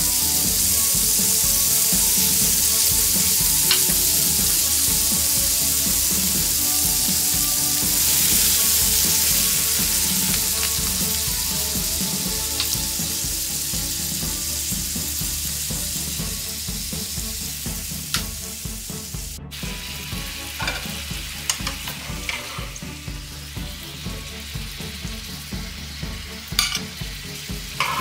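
Chicken breasts sizzling in a hot nonstick frying pan with fish sauce, apple cider vinegar and soy sauce added. The sizzle is loud at first and dies down gradually through the second half, breaking into scattered pops and crackles as the pan sauce cooks down.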